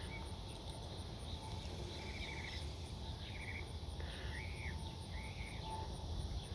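Faint outdoor ambience: an insect chirps in a steady high-pitched pulse several times a second, and a bird gives a few short arched calls in the middle, over a low rumble.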